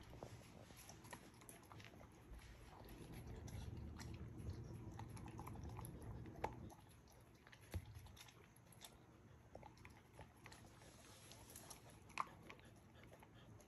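Samoyed eating soft fresh dog food from a stainless steel bowl: faint chewing and mouth smacking, with scattered small clicks.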